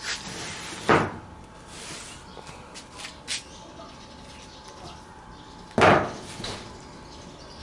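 Two loud short knocks or slaps, about five seconds apart, with a few softer taps between them.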